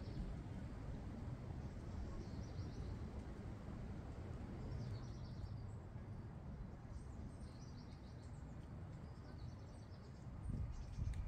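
A small bird chirping in short, high phrases every couple of seconds over a steady low rumble, which grows louder near the end.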